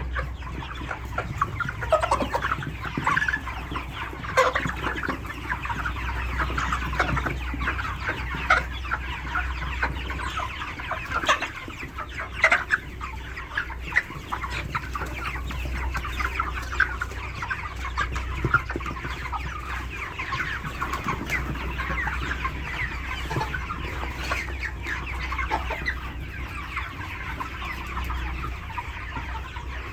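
A large flock of 42-day-old broiler chickens clucking and chattering continuously, many birds calling over one another. A steady low hum runs underneath.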